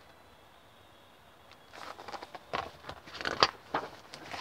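Hardcover picture book being handled and a page turned: a second or so of quiet, then a run of paper rustles and knocks, the sharpest about three and a half seconds in.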